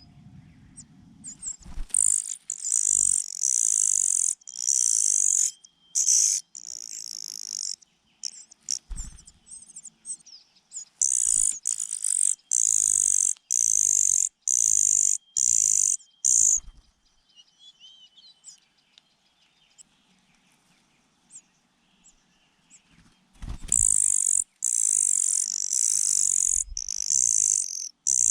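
Nestling birds begging for food: shrill, high-pitched calls repeated rapidly in short bursts, in three loud spells with quieter pauses between. A couple of low thumps are also heard.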